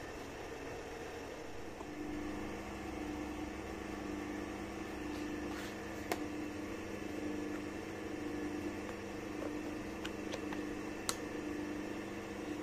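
Electric hand drill running slowly on a dimmer, turning the lathe's top-slide feed screw. Its steady, slightly pulsing hum starts about two seconds in, with a couple of sharp clicks.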